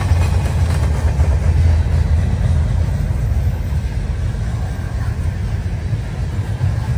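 A train's steady low rumble, holding fairly even throughout.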